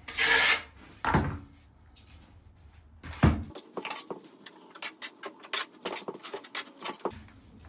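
Trowel work with thinset mortar on tile: a scrape at the start, a knock about a second in and a sharper knock about three seconds in, then a run of light scrapes and clicks.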